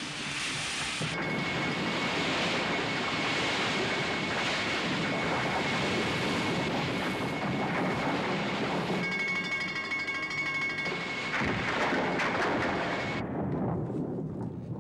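Water rushing and spraying through cracks in a concrete dam, under film score music with a long held high note. The rush cuts off sharply near the end, leaving a quieter low rumble.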